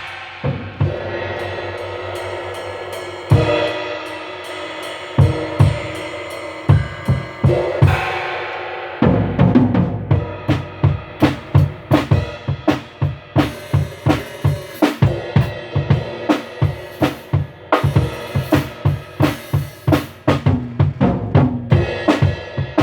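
Acoustic drum kit being played: kick drum, snare and cymbals. Sparse hits with ringing cymbals at first, then a steady, busier beat from about nine seconds in.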